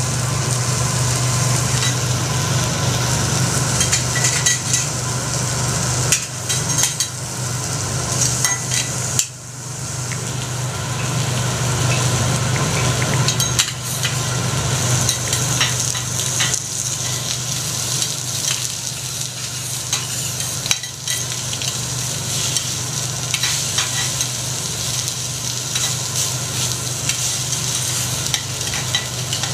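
Food sizzling on a teppanyaki steel griddle, a steady hiss over a low steady hum, with scattered small clicks of the chef's metal spatula working on the steel.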